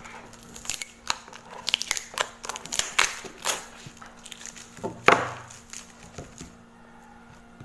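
Packing tape being peeled and torn off a cardboard shipping box, with rapid irregular crackling and ripping and a louder rip about five seconds in; quieter near the end.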